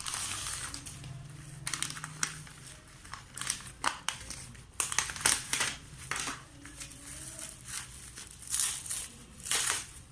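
Packaging crinkling and crackling in quick irregular bursts as a parcel is opened by hand.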